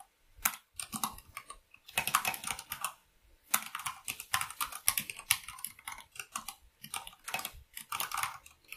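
Typing on a computer keyboard in quick runs of keystrokes, with short pauses near the start and about three seconds in.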